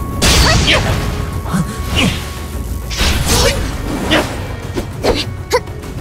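Animated battle sound effects: a rapid series of whooshes and impacts from clashing magical energy blasts, over a dramatic music score.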